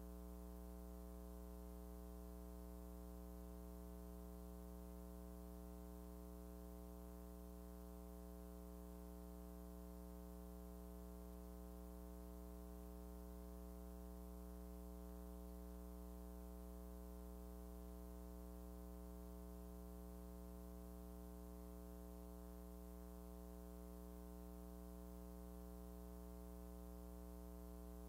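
Faint, steady low electrical hum with a ladder of evenly spaced overtones, unchanging throughout; the silent footage carries no other sound.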